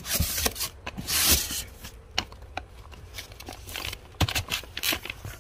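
Cardboard firework cake boxes being handled and moved: irregular scrapes, taps and rustling, with a longer scrape about a second in.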